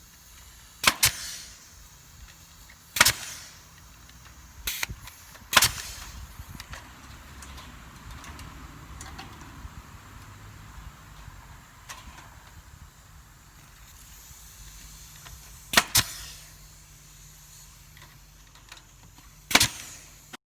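Sharp knocks or snaps, about eight in all at irregular spacing, some in quick pairs, over a faint steady background.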